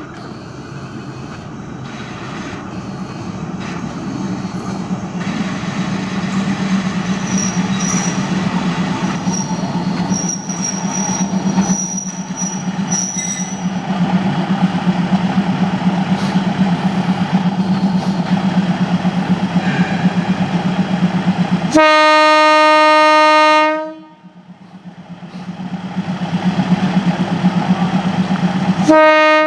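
Diesel locomotive of a Thai train approaching, its engine hum growing steadily louder. About 22 seconds in, the horn sounds one loud blast of about two seconds, and a short toot comes right at the end.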